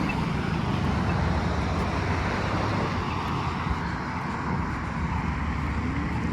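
Road traffic at the intersection: a steady rumble of passing cars, with one vehicle pulling away and rising in pitch near the end.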